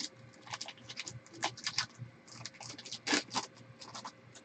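Foil trading-card pack wrapper being torn open and crumpled by hand: an irregular string of sharp crinkles and crackles, loudest about three seconds in.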